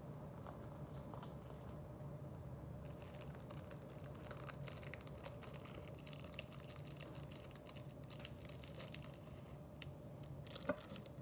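Light crinkling and rapid small clicks of packaging and small objects being handled, with one sharper click near the end, over a faint steady hum.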